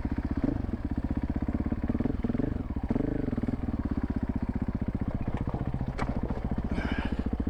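Dirt bike engine running at idle with a steady pulse, revved up and back down a few times in the first three seconds, then idling evenly. A sharp click comes about six seconds in.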